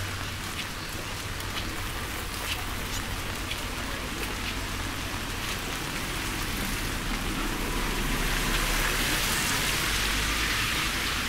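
Steady rain falling, an even hiss with scattered sharp drop ticks; the hiss grows a little louder about eight seconds in.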